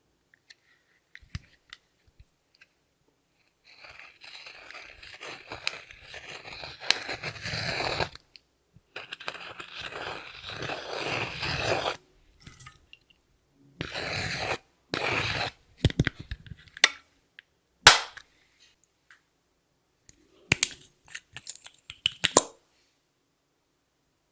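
Crunchy, scraping sounds of makeup and glitter being mixed into clear slime. There are two long stretches, each growing louder, then a run of short squishes and sharp clicks and taps.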